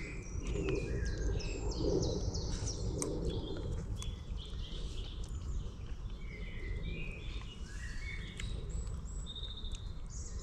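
Several wild songbirds singing and chirping, with many short, high notes and trills overlapping, over a low, steady background rumble.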